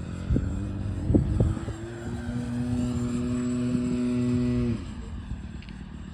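Electric ducted-fan RC jet (Freewing F-14, twin 64mm EDFs) flying overhead, with wind buffeting the microphone. A few thumps come in the first two seconds, then a steady hum that drops in pitch and fades about five seconds in as the jet passes.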